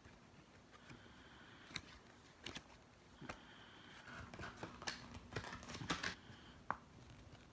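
Faint, scattered clicks and light taps of small objects being handled by hand, with a denser run of clicks about four to six seconds in.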